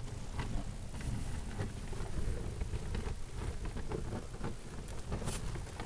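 Plastic crawlspace vapor barrier crinkling and scuffing under a worker crawling across it, many small irregular crackles over a steady low rumble.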